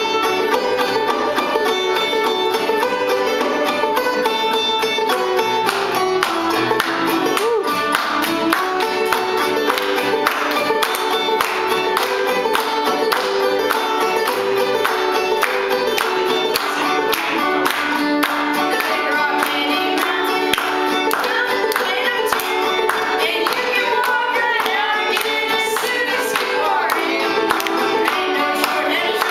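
A clawhammer banjo and an acoustic guitar playing an old-time tune together, with a voice singing along in the second half.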